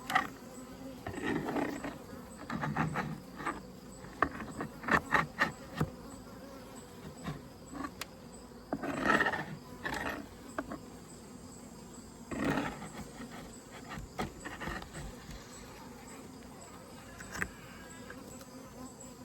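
Honeybees buzzing around an open Layens horizontal hive, swelling and fading, with a few brief knocks and clicks as frames and comb are handled.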